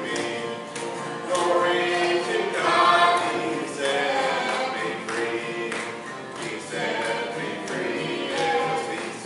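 A gospel hymn sung to acoustic guitar and piano accompaniment, the guitar strummed in a steady rhythm under the singing voices.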